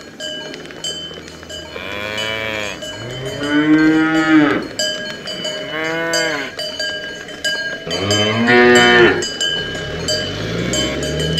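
Young cattle mooing, about five drawn-out moos that each rise and fall in pitch, over the continual clanking of the cowbells on their collars.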